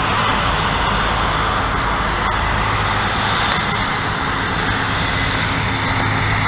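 Steady drone of IH rotary combines harvesting soybeans across the field, engines and threshing running without a break. A few brief rustles of nearby brush.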